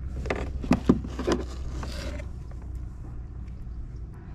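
Handling noise in a plastic kayak: a few sharp knocks and taps in the first second and a half, then a brief rustle, over a steady low rumble.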